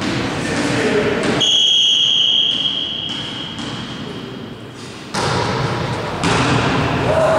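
Volleyball referee's whistle: one long steady blast of about two seconds, starting about a second and a half in, the signal for the serve. After it the gym noise of play comes back suddenly, with thuds of the ball and players' voices.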